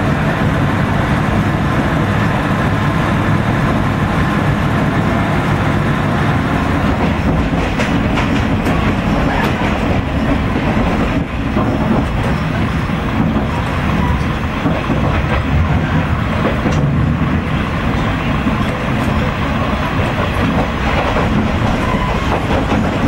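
Old diesel railcar under way, heard from inside the passenger cabin: a steady rumble of the underfloor diesel engine and running gear, with the wheels clacking over rail joints now and then.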